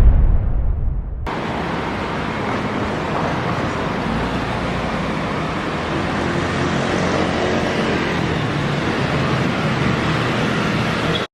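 Road traffic noise sound effect: a heavy low rumble for about the first second, then a steady wash of traffic noise that cuts off abruptly at the end.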